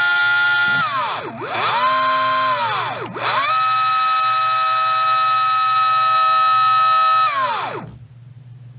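Surpass Rocket V6 17.5T brushless motor whining as the Hobbywing Tunalyzer spins it through its auto test: it runs at a steady pitch, slows almost to a stop about a second in, spins back up, slows again about three seconds in, then spins up and holds a steady whine. It winds down and stops near the end.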